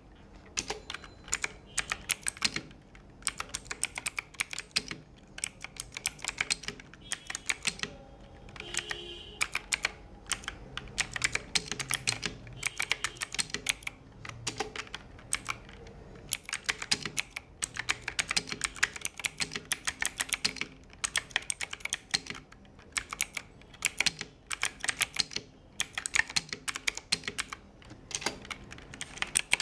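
Typing on a Bajeal K100 mechanical keyboard: fast runs of sharp key clicks in bursts of a few seconds, with short pauses between them.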